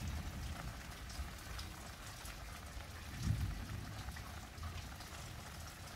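Steady rain falling, with scattered faint drip ticks over a low rumble; the low rumble swells briefly about three seconds in.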